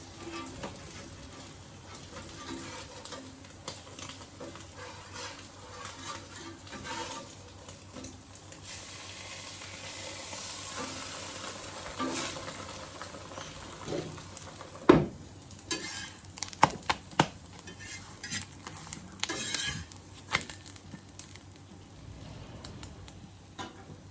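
Food frying in a pan with a light sizzle while a cooking utensil stirs and scrapes against it. From a little past halfway a run of sharp metal clinks on the pan comes in, the loudest of them about fifteen seconds in.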